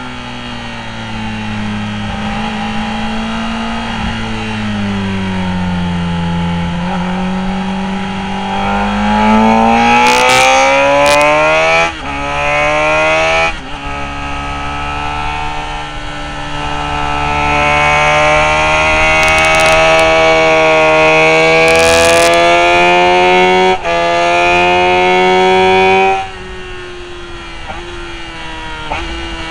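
Motorcycle engine heard from an onboard camera at track speed: the revs climb hard under acceleration, dip briefly at quick gear changes, and fall away sharply when the throttle is shut, twice, about halfway and again near the end.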